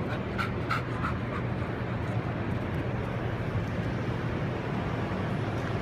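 A dog giving a few short, high whines or yips in the first second or so, over the steady low hum of a large exhibition hall.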